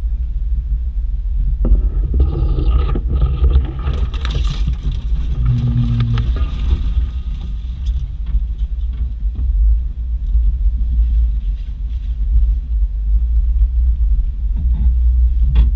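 Off-road vehicle driving slowly through deep snow with a steady low rumble. From about two seconds in to about seven seconds in, snow-laden branches scrape and brush loudly along the body.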